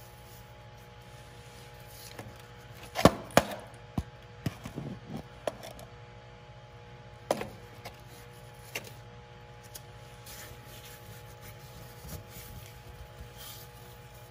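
Sharp knocks and clicks of a metal hydraulic oil filter canister being handled and fitted by hand on a 1971 Bobcat M600, clustered about three to six seconds in with another about seven seconds in, over a steady low hum.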